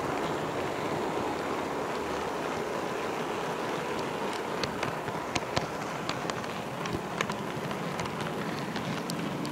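Metal wheels of an HO-scale model railroad car rolling along the track, heard through the car's own body as a steady hiss. From about four seconds in there is an irregular string of sharp clicks as the wheels cross rail joints and a turnout.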